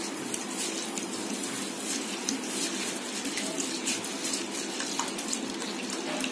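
Water running steadily into a bowl of biryani rice to soak it, with a continuous splashing gush.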